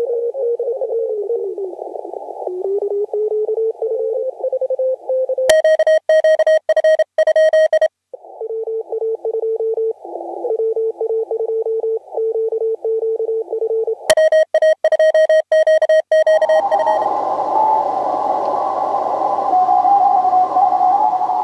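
Morse code (CW) over an HF amateur radio receiver: keyed dits and dahs in a narrow band, with the pitch shifting as different stations call. Twice a louder, cleaner keyed tone cuts in. Near the end the Morse comes through a background of hiss and band noise.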